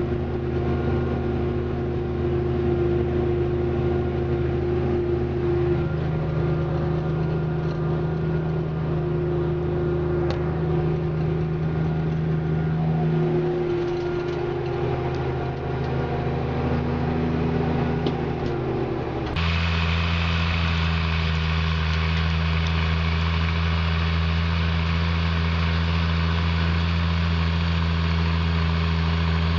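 Diesel engine of a farm machine running steadily, its pitch shifting slightly a few times. About two-thirds of the way through, the sound switches abruptly to a different steady engine drone.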